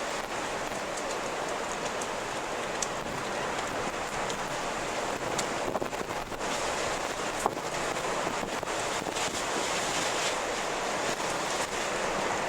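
Strong wind blowing steadily, a dense rushing hiss with scattered short clicks.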